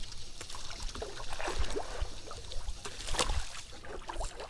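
Water sloshing and splashing around a small boat, with irregular knocks.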